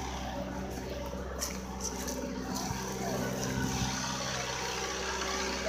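A motor running steadily nearby, a low, even hum that holds the same pitch throughout, with a few faint ticks over it.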